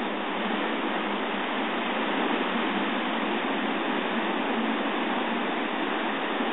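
Ocean surf breaking and washing over a rocky shore at high tide: a steady rush of water noise, heard through a phone's microphone.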